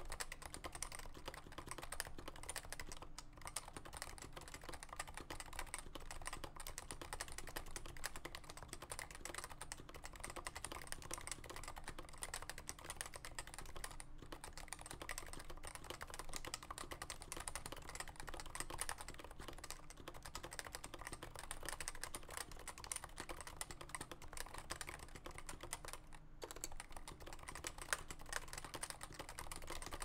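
Continuous typing on a Cooler Master NovaTouch keyboard in a Norbatouch case: Topre switches with unlubed sliders, lubed stabilizers and GMK Classic Retro keycaps, a dense run of keystrokes broken by a few short pauses.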